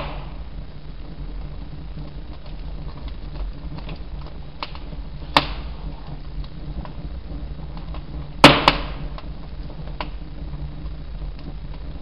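Two sharp knocks about three seconds apart, the second a quick double, over a steady low hum.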